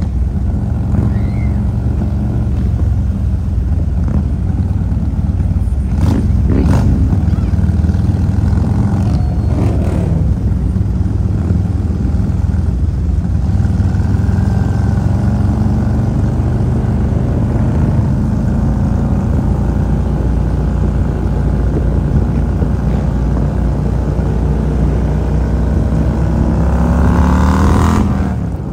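Harley-Davidson Road King's V-twin engine running steadily while riding in a group of motorcycles, with a few sharp knocks about six and ten seconds in. Near the end the engine revs up as it accelerates.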